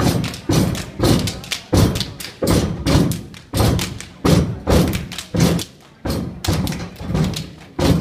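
Step team stomping in unison on a hollow portable stage and clapping, a steady rhythm of sharp thumps about two to three a second.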